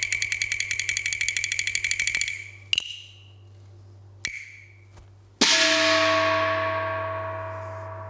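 Cantonese opera percussion for a stage entrance. A fast roll of strokes stops about two seconds in, then two single sharp, ringing strokes. About five and a half seconds in comes a loud gong crash that rings on and slowly fades.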